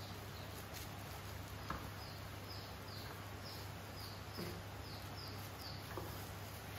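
A bird singing a run of short, high, falling notes, about three a second, through the middle. Underneath are a steady low hum and a few light knocks, the sharpest a little under two seconds in.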